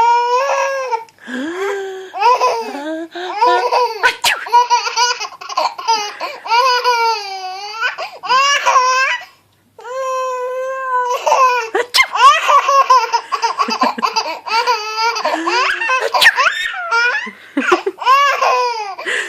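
A baby boy laughing in repeated fits of high-pitched squeals and giggles, with a short break about halfway through.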